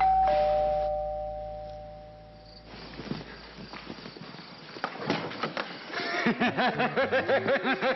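Doorbell chiming a two-note ding-dong, the higher note then a lower one, ringing out and fading over about two and a half seconds. Indistinct voices rise in the last couple of seconds.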